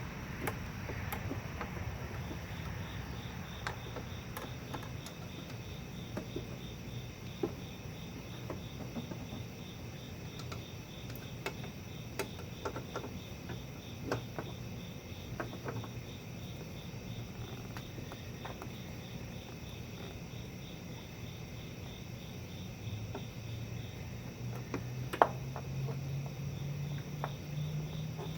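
Scattered clicks and clinks of hand tools at work in a car's engine bay, with the sharpest knock a few seconds before the end. Behind them runs a steady, evenly pulsing chirp of crickets, and a low hum swells in the last few seconds.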